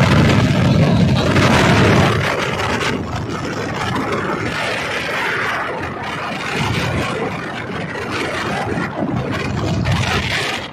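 Wind rushing over the microphone, mixed with a vehicle's running and road noise, while travelling along a road. The noise is loudest for about the first two seconds, then settles a little lower and stays steady.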